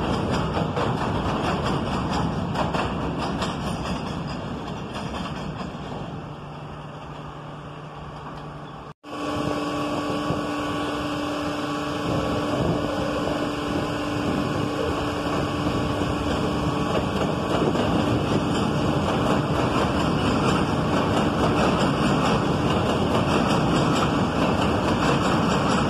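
Elevated New York City subway train running over steel elevated track and fading as it moves away. After an abrupt cut about nine seconds in, another subway train's running noise, with a steady tone, grows gradually louder as it approaches.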